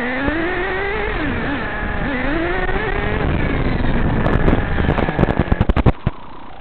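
OFNA LD3 nitro RC car's small glow engine running, its pitch rising and falling with the throttle. From about four seconds in, a quick run of sharp crackles builds up, and the engine sound drops away about six seconds in.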